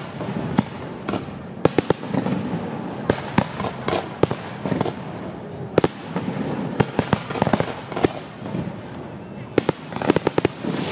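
Fireworks going off: many sharp bangs and cracks at irregular intervals, with quick bursts of crackling pops about two-thirds of the way in and again near the end.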